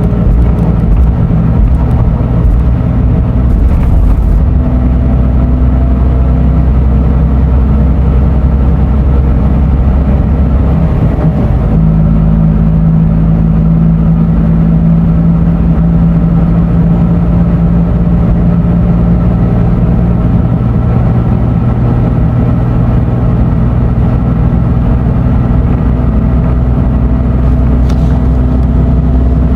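Scania Euro 6 diesel engine of an Irizar i6S coach running steadily under way, heard on board. Its note shifts about 11 seconds in and again around 20 seconds.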